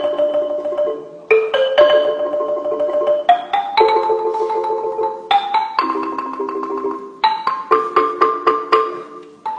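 Background music: a light tune of struck, ringing notes, some held and some quickly repeated, in the sound of mallet percussion.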